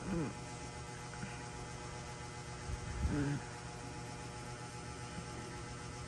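Steady electrical hum throughout, with two brief voice sounds over it: a falling one right at the start and a short held one about three seconds in.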